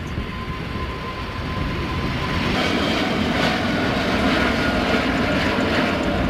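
Four-engine Airbus A380 airliner taking off at full thrust: loud, steady jet engine noise that swells slightly about two and a half seconds in as the plane climbs away.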